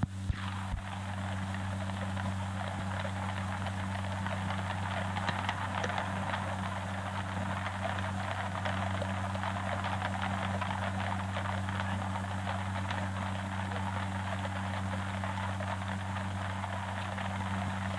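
Steady hiss and fine crackle over a low steady hum: the background noise of an old film soundtrack. There are a few sharp clicks in the first second.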